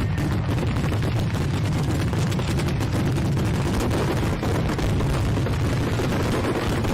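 Fireworks going off in a dense, continuous barrage of rapid bangs and crackles, with a steady low rumble underneath.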